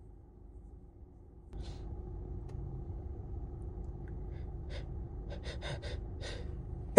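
A person's pre-sneeze build-up: one breath about a second and a half in, then a run of short, catching inhaled gasps from about four seconds on that come faster and faster as the sneeze nears. A low steady hum lies underneath.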